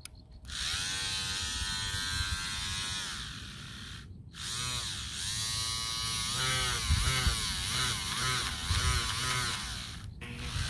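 Small 9 V-battery DC motor driving a plastic propeller, whining as it is switched on. It runs steadily, winds down, then starts again. In the second run its pitch rises and falls several times in quick swings.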